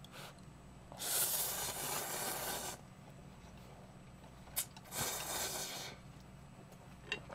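Two long slurps of Shin Ramyun noodles, the first about a second in and lasting nearly two seconds, the second shorter, around five seconds in, with a short click between them.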